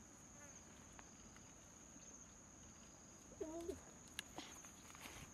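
Faint, steady, high-pitched trill of insects. A short low call sounds about three and a half seconds in, followed by a sharp snap.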